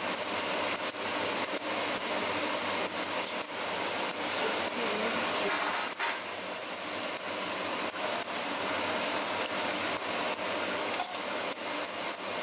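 Whole spices (bay leaves, cumin seeds, cinnamon stick and dried red chillies) sizzling in hot oil in a pressure-cooker pot: a steady hiss with many small crackles and pops.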